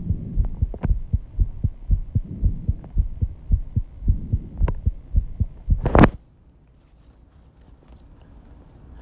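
Fast, pounding heartbeat after intense exercise: an even run of rapid low thumps, with a swell of breath noise every couple of seconds. About six seconds in, a loud brief noise cuts across it and the heartbeat stops, leaving a faint hum.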